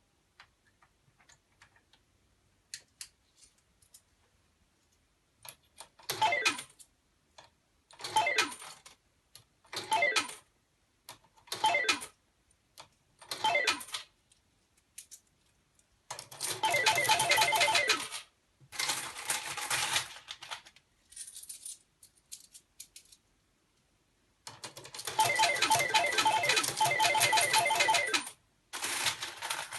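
Hanabi Japanese token slot machine (pachislot) with tokens clattering into its tray. First come several short clinking bursts about two seconds apart, then two longer runs of rapid clinking of several seconds each.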